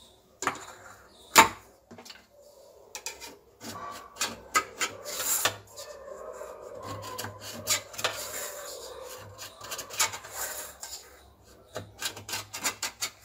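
Knife blade scraping and clicking around the inside wall of a metal cake tin to loosen steamed dhokla, a run of short irregular scrapes and taps. One sharp knock stands out about a second and a half in.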